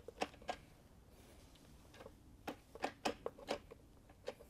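Faint, irregularly spaced clicks and clacks, about eight of them, from a Dieselgeek Sigma 6 short shifter and its cable linkage on a VW six-speed being worked while trying to select reverse. The gear isn't going in properly, which the installer puts down to the side-to-side cable adjustment.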